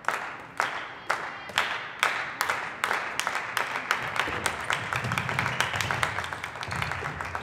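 Sharp knocks echoing in a large room, about two a second at first, then denser and more scattered from about three seconds in.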